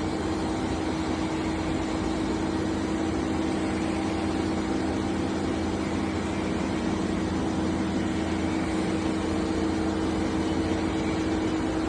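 Steady machine hum with a few constant low tones from a CNC table-type boring mill running while its rotary table turns through 90 degrees.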